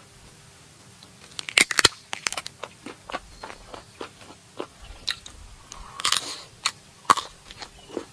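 A person biting and chewing crunchy, crispy food: irregular crisp crunches starting about a second in, loudest in a quick cluster soon after, then scattered crunches.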